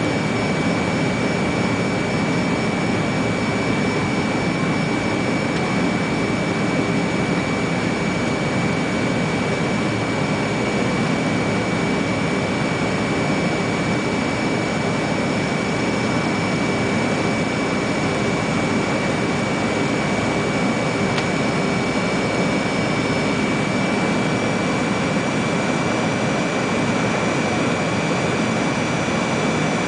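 Cabin noise of an MD-80 (Super 80) descending on approach: the rear-mounted Pratt & Whitney JT8D turbofans and rushing airflow make a steady roar with a constant high-pitched whine over it.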